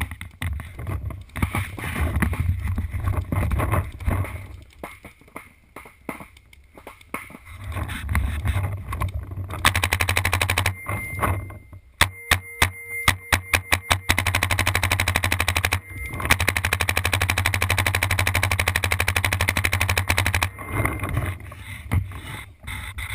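Paintball markers firing. Scattered pops come first, then from about the middle comes roughly ten seconds of very fast, near-continuous fire, broken by a short run of separate shots and a brief pause.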